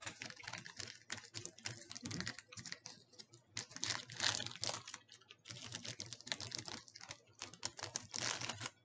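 Plastic granola bar wrapper crinkling as it is handled and opened: a dense run of irregular crackles, with brief lulls.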